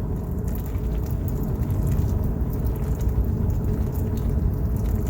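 A steady low rumble, with the faint hiss and splash of hot water being poured in a thin stream from a Brim electric gooseneck kettle.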